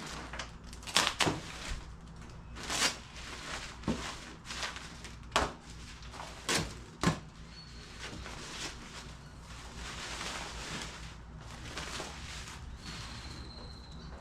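Cardboard packaging of a welding table being cut open and handled: irregular knocks and thumps, about seven louder ones in the first seven seconds, then quieter rustling and scraping.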